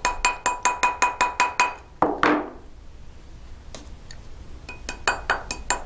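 Quick light taps of a plastic mallet on a ring sitting on a steel ring mandrel, about eight a second, each with a short metallic ring from the mandrel, reshaping a ring bent slightly out of round. The tapping stops for about three seconds midway, then starts again.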